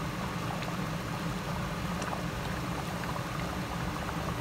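Thick tomato-based callos stew bubbling as it simmers in a pot, a few faint pops over a steady low hum.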